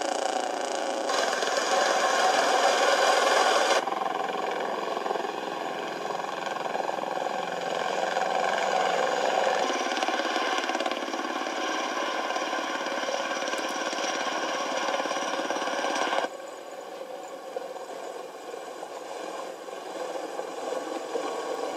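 V-22 Osprey tiltrotor flying, its rotor and engine noise coming thin and bassless through a computer's speakers. The noise changes level abruptly about a second in, about four seconds in and about sixteen seconds in, as the footage cuts between clips.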